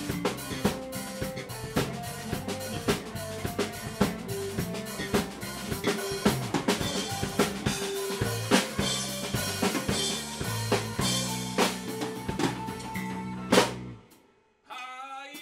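Live rock band playing an instrumental passage: drum kit hits over a stepping electric bass line with electric guitar. Near the end the band stops on a single loud hit, and after a brief gap one held, wavering note sounds.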